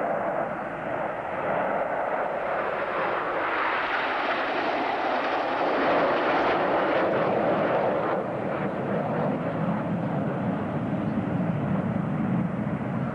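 Jet noise from a nine-aircraft aerobatic formation, the Red Arrows' BAE Hawk jets, passing overhead. The rushing sound swells to its loudest about halfway through, then drops in pitch as the jets move away.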